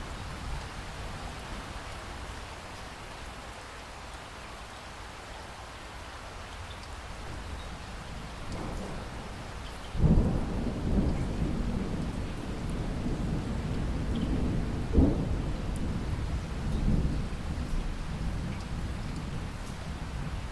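Steady rain with a long roll of thunder: a low rumble builds about eight seconds in, breaks loudly around ten seconds, and rolls on with more peaks before easing near the end.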